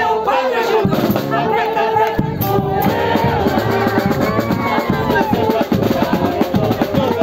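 Lively band music with a steady drum beat and held wind-instrument notes, mixed with the voices of a crowd singing and calling out along with it.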